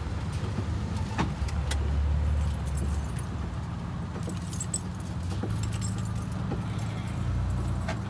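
Braun roof-top wheelchair carrier (chair topper) running its electric motor to lower a folded wheelchair, a steady low hum with metallic rattling and clicks. The unit is working normally after a repair.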